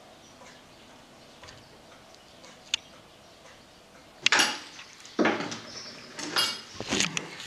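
Dishes and cutlery clattering: after a quiet start with a single click, a run of loud clanks and clinks begins about four seconds in.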